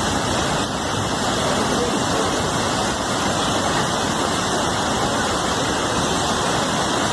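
Floodwater rushing, heard as a steady, dense noise with no break.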